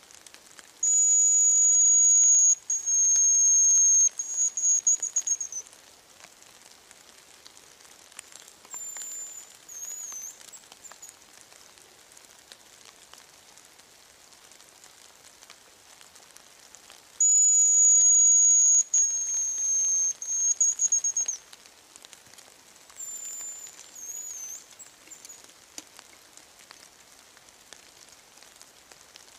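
Hazel grouse decoy whistle blown twice, each call a long thin high whistle sliding slightly down and ending in a short trill. A few seconds after each call a fainter, wavering high whistle answers: a male hazel grouse responding to the lure.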